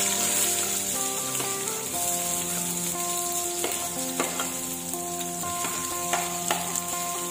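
Sliced shallots, garlic, ginger and lemongrass sizzling steadily as they drop into hot oil in an aluminium wok, with a few sharp clicks as a metal spoon scrapes them off a plate.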